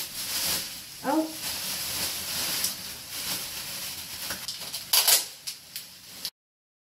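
Thin clear plastic garment bag crinkling and rustling as a gown on a hanger is pulled out of it, with a louder crackle about five seconds in. A short rising vocal sound about a second in; the sound cuts off abruptly near the end.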